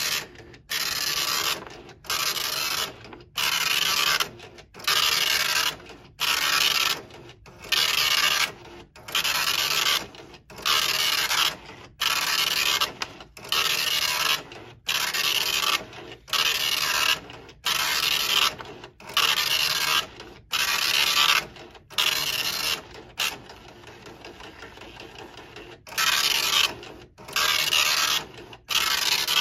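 Dot matrix printer printing on tractor-feed paper, its print head rasping across each line in a regular run of bursts about a second and a half apart. Near the end it goes quieter for about three seconds before the bursts resume.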